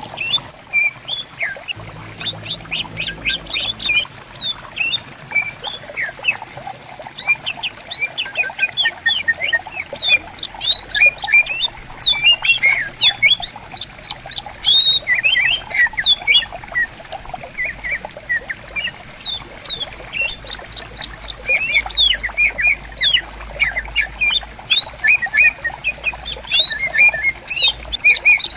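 Cucak ijo (greater green leafbirds) singing and answering one another in rapid, sweeping chirps and whistles, over the steady murmur of a flowing stream. The song is busiest from about a third of the way in and again near the end.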